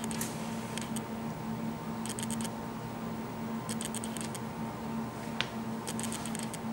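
Hands folding and pressing puff pastry on a bamboo cutting board: short clusters of light ticks and rustles every second or two. Near the end a fork clicks against the board as the pastry edges are crimped. A steady low hum runs underneath.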